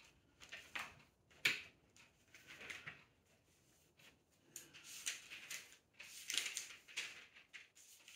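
Pages of a large, thick Bible being turned by hand: soft paper rustles, with one sharper page flick about a second and a half in and busier leafing in the second half.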